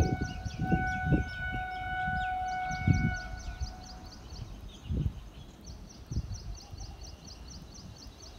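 A bird calls in fast runs of sharp high chirps, about five a second, in two bouts. For about the first four seconds a steady distant horn-like tone sounds over it. Low rumbles come and go underneath, heaviest at the start.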